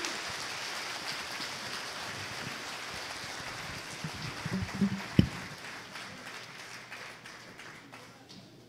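Audience applauding, fading away over several seconds. A few knocks come about four to five seconds in, the loudest a single sharp thump, as a microphone is put back on its stand.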